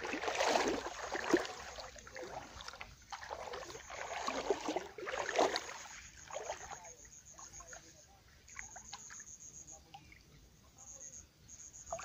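Water sloshing and splashing in uneven surges, as from someone wading through a flowing stream, strongest in the first half and fading toward the end.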